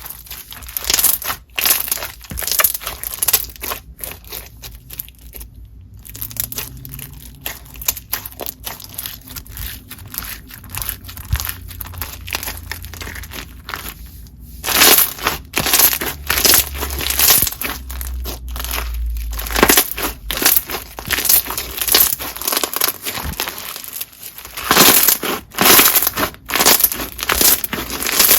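Crunchy white-glue slime packed with slushy beads and bingsu beads being squeezed and pressed by hand, giving dense, irregular crunching and crackling, with heavier bursts of crunches in the second half.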